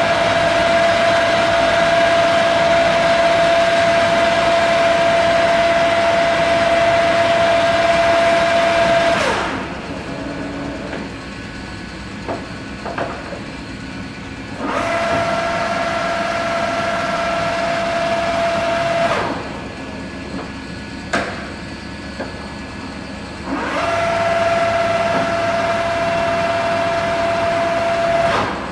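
American Pacemaker engine lathe's geared headstock running with a steady gear whine. It winds down with a falling pitch about nine seconds in, then is started and stopped twice more. Between runs a lower hum carries on, and the gear-change levers clunk a few times.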